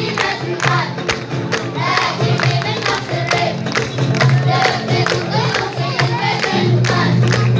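A middle-school vocal group singing an Amazigh song together. Low held accompaniment notes and a regular percussive beat run under the voices.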